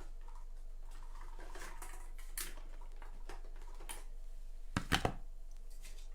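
Soft rustles and light taps of paper and craft pieces being handled on a desk, with a sharper double tap about five seconds in, over a steady low hum.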